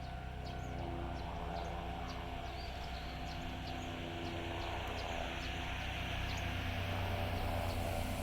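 Japanese railroad crossing alarm ringing its steady kan-kan, about two to three strikes a second, with a train's running noise growing louder over the second half.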